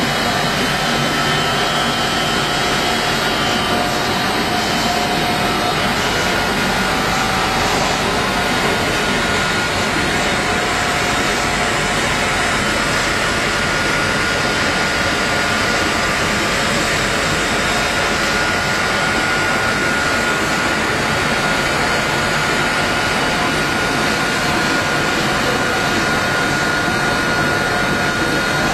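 Drip irrigation tape extrusion line running: a steady, loud machine drone with a constant high-pitched whine held through it.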